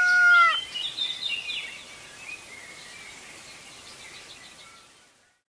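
A rooster's crow ends about half a second in, followed by small birds chirping over a faint hiss that fades out to silence about five seconds in.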